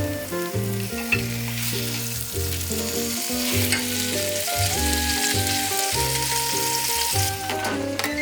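Meat sizzling as it cooks, the hiss swelling about a second and a half in and easing off near the end, over background music with a bass line.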